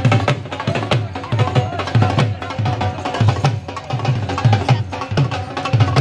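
Dhol beaten in a steady rhythm: deep bass strokes about twice a second under quick, sharp stick clicks.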